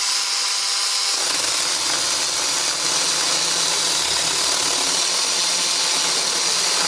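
A handheld power cutting tool running steadily while cutting back an overgrown bush, with a deeper load sound joining about a second in.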